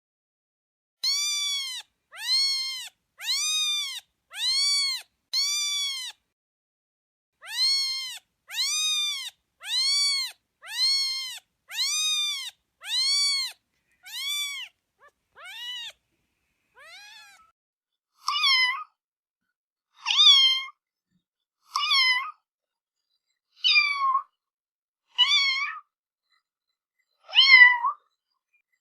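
Domestic cat meowing over and over, each meow a separate call with silence between. The first dozen come quickly, about one a second, each rising and falling in pitch. From about midway the meows are shorter, sharper and more spaced out, one every second or two.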